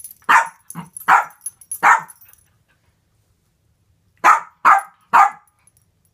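Small dog barking at a guinea pig: three barks about a second apart, then after a pause of about two seconds three more in quicker succession.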